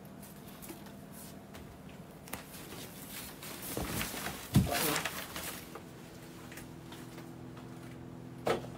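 Rustling and knocking of objects being handled off to one side, with one loud thump about halfway through and a short sharp click near the end.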